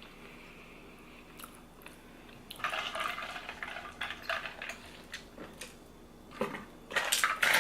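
A person drinking Vitamin Water from a bottle in gulps, with liquid sloshing. It starts about two and a half seconds in, and there are sharp clicks near the end.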